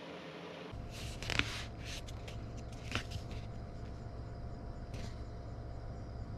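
A steady low hum, vehicle-like, that starts about a second in, with a few short rustles or taps, the loudest about a second and a half in.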